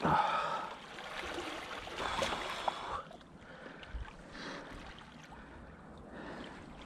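Water splashing and swirling as a hooked wels catfish rolls at the surface, loudest right at the start, with another splash about two seconds in, then a quieter wash of moving water.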